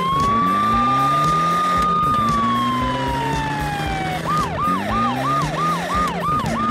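Police car siren wailing: it rises and holds, falls slowly, then about four seconds in switches to a fast yelp of about three cycles a second, and rises again near the end. Under it a vehicle engine revs up again and again.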